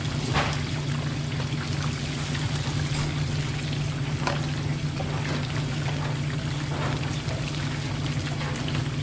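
Steady low hum of room ventilation under an even hiss, with a few faint clicks and clinks of dishes or utensils.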